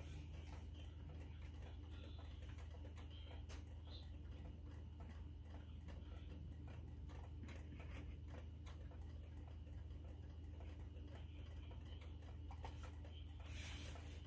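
Quiet steady low hum with faint, scattered light ticks and clicks, and one brief rustle near the end.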